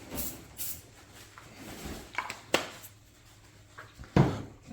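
Aerosol spray-paint can giving two short bursts of hiss in the first second, then a few handling clicks and a single louder knock near the end.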